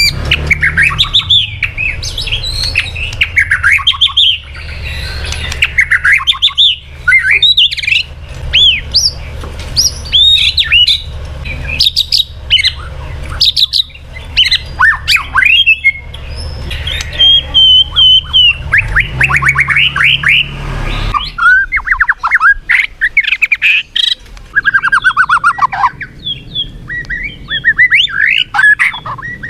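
White-rumped shama singing a loud, rapid, varied song of whistled notes, up-and-down sweeps and fast falling trills. A low steady hum lies under the song and stops about two-thirds of the way through.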